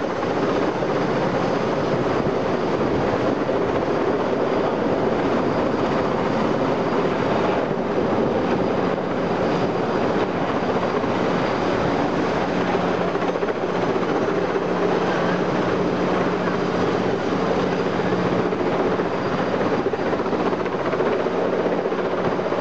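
Heavy-lift helicopter flying overhead with a load slung on a long line, its rotors and engine making a steady, unbroken noise with a low hum.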